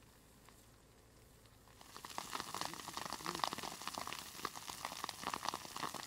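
Burning brush and forest vegetation crackling and popping in a wildfire: a dense, irregular run of sharp snaps that starts about two seconds in after a faint hiss.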